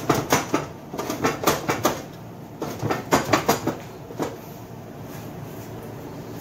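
Aluminium pot of fish curry being shaken on a gas stove's grate, clattering in quick repeated knocks for about four seconds, then stopping. The pot is swirled rather than stirred with a spoon so the fish pieces don't break.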